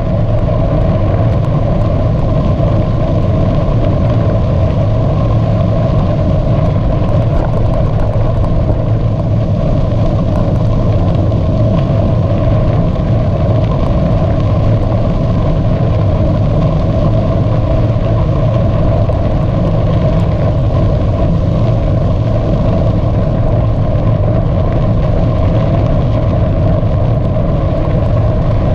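Loud, steady rumble of a bicycle ride, with a constant low hum and no breaks.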